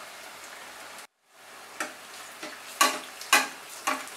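Besan-battered bread pakoras deep-frying in hot oil: a steady sizzle, broken briefly about a second in, then several sharp crackles and splashes, the loudest about three seconds in, as a slotted spoon ladles oil over them.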